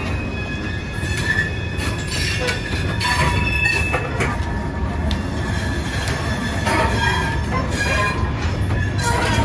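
Loaded Norfolk Southern coal hopper cars rolling past close by: a steady low rumble with thin, wavering wheel squeal on the curving track and scattered clanks from the wheels and couplers.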